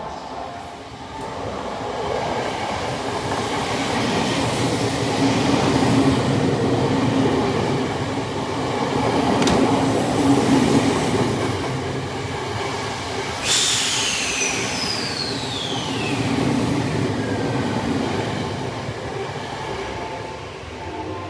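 Tokyo Metro Tozai Line train running through the station at speed without stopping, an out-of-service run: wheels on rails, building over the first few seconds and easing off near the end. A sharp click comes partway through. About two-thirds in, a high wheel squeal starts suddenly and falls steadily in pitch.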